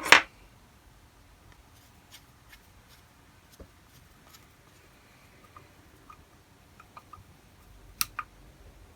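Small metal carburetor parts being handled and fitted: scattered light clicks and taps as the pilot jet goes in, with a short sharp noise right at the start and a louder click about eight seconds in.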